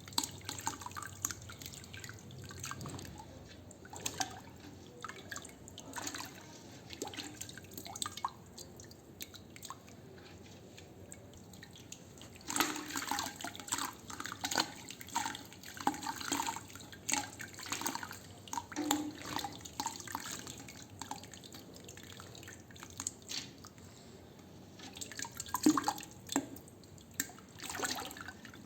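Sand crumbling in water: irregular drips, plops and small crackling splashes, busiest from about twelve seconds in and again near the end.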